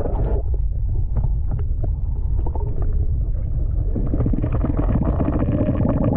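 Wind buffeting the microphone as a steady low rumble, with scattered light knocks; a broader hiss joins in about four seconds in.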